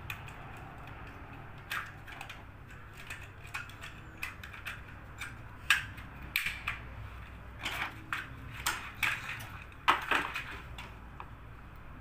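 Irregular clicks and knocks of a washing machine's plastic control-panel housing and circuit board being handled and pressed together, sparse at first and coming thick and fast in the second half, with the sharpest knocks near the middle and about ten seconds in.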